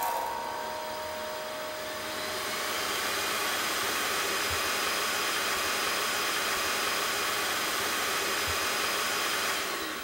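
Steady rushing noise of an electric blower-type appliance running, building up over the first couple of seconds and dying away near the end.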